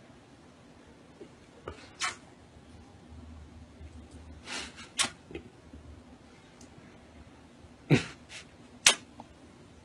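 Kissing sounds: about half a dozen short, sharp lip smacks spaced out over several seconds, the loudest two close together near the end.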